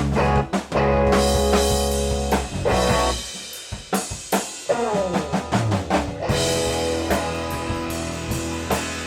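Band jam: a drum kit keeping a beat under bass and electric guitar, with a held low bass note at the start and a falling glide in pitch about five seconds in.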